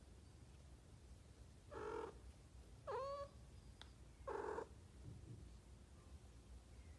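Mother cat purring steadily while she calls softly to her kittens: three short calls about two, three and four and a half seconds in, a rolled trill, a mew, then another trill.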